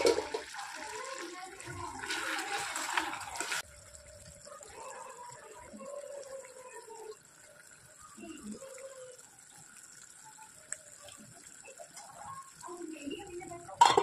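Thick gravy boiling in a steel pan, bubbling and hissing for the first few seconds and then fainter. Near the end comes one sharp clink as a steel lid is set down on the pan.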